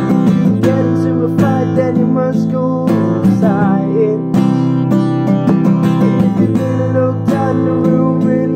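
Acoustic guitar strummed steadily, chords ringing without a sung line.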